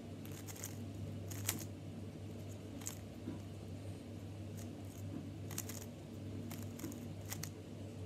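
GAN 356 Air M magnetic 3x3 speed cube being turned by hand: irregular plastic clicks as the layers turn and the magnets snap them into place. A steady low hum runs underneath.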